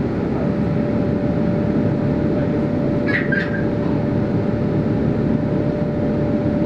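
Interior of a Metro Transit A Line bus on the move: steady engine and road noise with a thin constant whine running through it, and a brief squeak about three seconds in.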